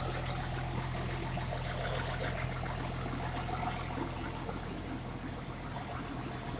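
Caterpillar diesel engine idling steadily, a low even hum.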